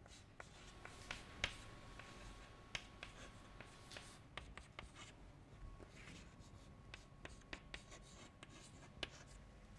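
Chalk writing on a chalkboard: faint scratching strokes broken by irregular sharp taps as symbols are written, the loudest tap about a second and a half in.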